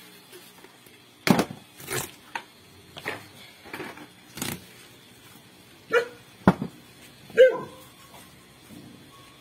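A dog barking in short, irregular barks, about eight in all, with a sharp knock about six and a half seconds in.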